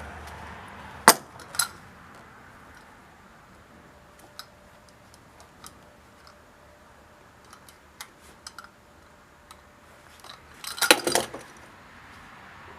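Handling noises while stripping electrical cable sheathing with a utility knife: a sharp click about a second in and another just after, scattered light ticks, then a short clattering jangle near the end.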